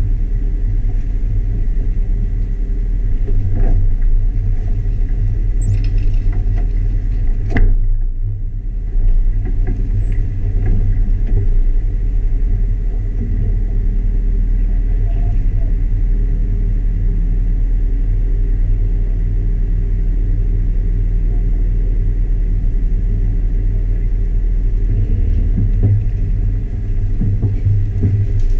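Jeep Wrangler running slowly off-road: a steady low rumble from the engine and drivetrain. A couple of sharp knocks come through, the loudest about eight seconds in.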